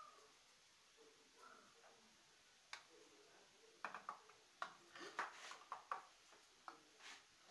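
Oil heating in an aluminium frying pan on a gas stove, with an irregular scatter of small sharp pops and ticks starting about three seconds in, several close together in the middle.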